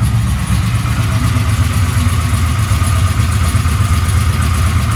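Carbureted-free, Holley Terminator X fuel-injected LT1 383 small-block V8 idling steadily at about 1000 rpm through open headers, shortly after a cold start with the coolant still cold.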